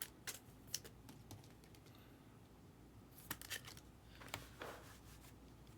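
Quiet, scattered light clicks and soft rustles of hands at work, a handful of separate ticks with a short cluster in the middle.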